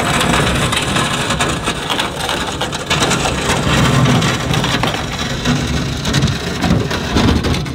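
The metal rear end of an enclosed cargo trailer scraping and grinding along asphalt as the trailer is reversed downhill: a loud, continuous, crackling scrape, like nails on a chalkboard.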